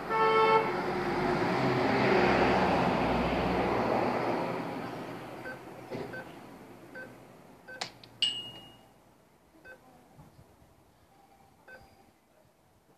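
ATM keypad beeping: a string of short high beeps, one per key press, with a couple of clicks and a longer, higher beep about eight seconds in. A short pitched beep sounds at the very start, and a loud rushing noise fades away over the first few seconds.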